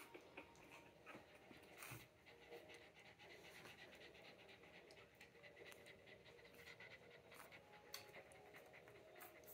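Mother puggle panting rapidly and evenly while nursing her puppies, faint.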